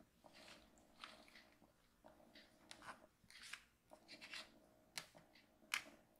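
Faint, irregular rustling and scratching as two kittens wrestle on their backs, their paws and claws scuffing a fleece blanket, with two sharper clicks near the end.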